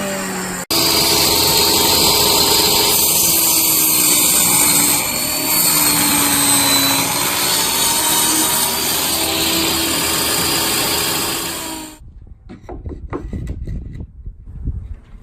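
A power tool running on the van's plywood subfloor, a loud steady whir with a faint drifting hum, cutting in just under a second in and stopping about twelve seconds in. Scattered light taps follow.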